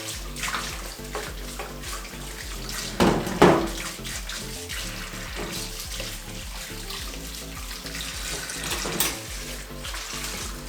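Hot water being poured, a steady splashing run, with a couple of knocks a few seconds in.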